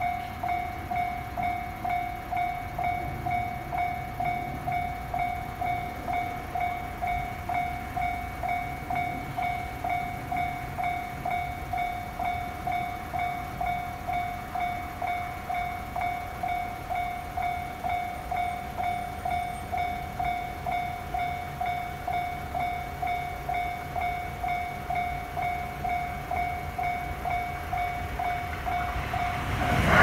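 Japanese railway level-crossing warning bell ringing in an even, quick stream of dings on one pitch, warning of an oncoming train. In the last second or two the rumble of the approaching electric commuter train rises under it.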